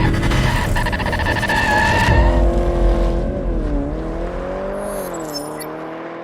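A car engine revving up and down, with a screeching, squeal-like burst in the first two seconds, then fading out.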